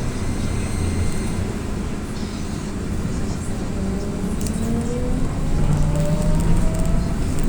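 AKSM-321 trolleybus in motion, heard from inside: a steady low rumble of the running vehicle. From about three seconds in, the electric traction drive's whine rises steadily in pitch as the trolleybus accelerates.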